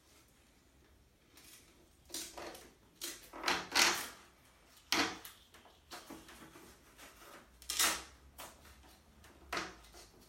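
Velcro straps being pulled tight and pressed closed around a bike frame: about half a dozen short, noisy rips and presses, the loudest a few seconds in and again near eight seconds.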